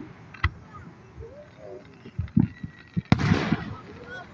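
Fireworks bursting: a sharp bang about half a second in, a few more around two seconds in, and the loudest bang about three seconds in, followed by a short hiss.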